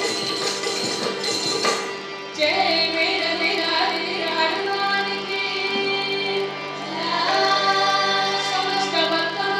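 A group of children, mostly girls, singing a devotional bhajan in chorus over a steady held keyboard drone. For the first two seconds a busy jingling percussion rhythm goes with them; it stops about two seconds in and the voices carry on over the drone.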